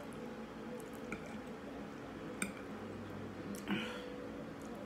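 Close-up sounds of a person eating: quiet wet chewing and mouth noises with a few short sharp clicks and smacks, over a faint steady hum.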